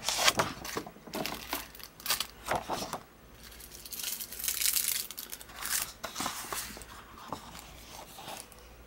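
Thin clear plastic sleeves of clear stamp sets crinkling and rustling as they are handled and swapped, in irregular bursts, loudest just after the start and again around four to five seconds in.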